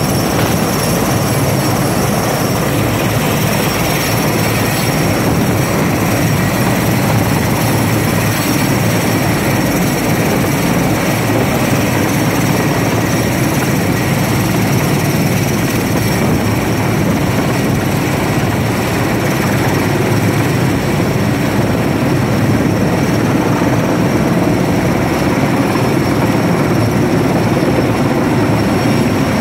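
Sikorsky S-64 Skycrane heavy-lift helicopter hovering low overhead: a steady, loud rush of rotor and turbine noise with a thin high whine over it.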